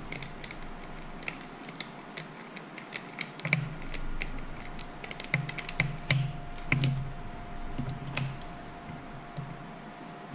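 Irregular light clicks and taps of a screwdriver against the plastic and metal parts of a motorcycle turn signal as a small screw is fitted and worked in by hand.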